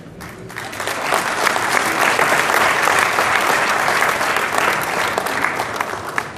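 Audience applauding, swelling over the first second or so and dying away near the end.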